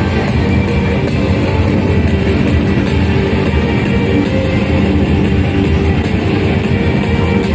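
Loud rock-style music with guitar and drums, played without a break.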